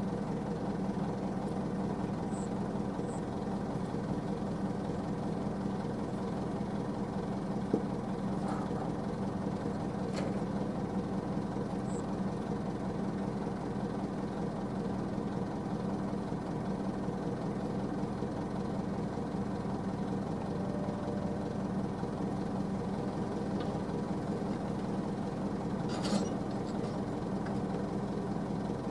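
Heavy diesel engine of earth-moving machinery running at a steady idle, without revving. A sharp click about eight seconds in, and a brief scrape or rattle near the end.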